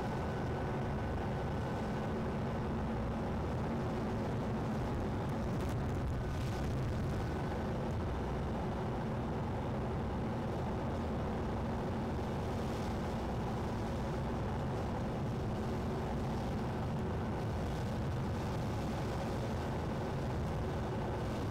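Car driving along a road, heard from inside the cabin: steady engine and tyre noise.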